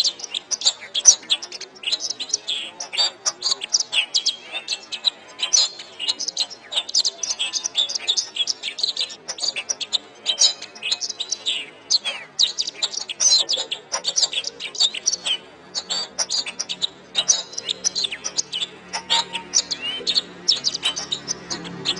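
Domestic canary singing a continuous, rapid song of chirps and trills, the kind of recording used to tutor other songbirds. A faint low tone comes in near the end.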